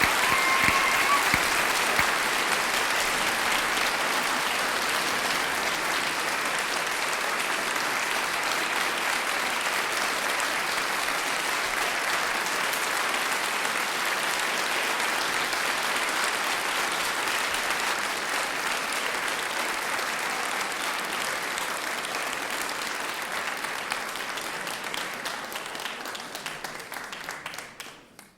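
Large audience applauding in a big hall, a dense, steady patter of many hands clapping that gradually thins and dies away near the end.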